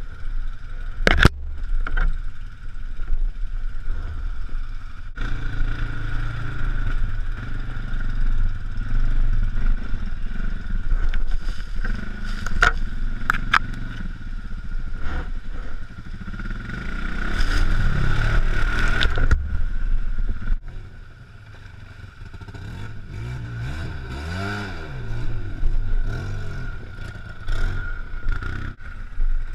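ATV engine running and revving through mud and brush, with sharp knocks and scrapes. The engine is loudest through the middle, drops back about two-thirds of the way in, then revs up and down briefly near the end.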